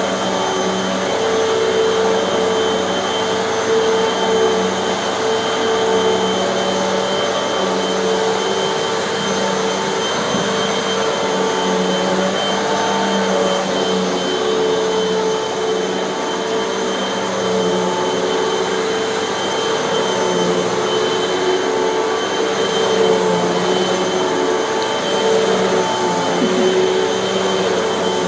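Hoover bagless vacuum cleaner running steadily on carpet, a loud motor whine and airflow rush holding a near-constant pitch with slight dips and rises as it is pushed along.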